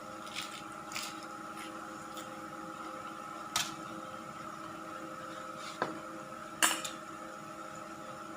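Someone eating: a handful of short, wet smacks and clicks, the loudest about two-thirds of the way in, over a steady hum.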